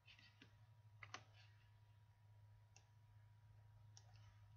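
Near silence with a low steady hum and a few faint computer mouse clicks, the clearest about one, three and four seconds in.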